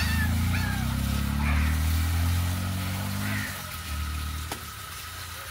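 Mahindra 265 DI tractor's three-cylinder diesel engine running steadily, dropping back to a quieter run about three and a half seconds in.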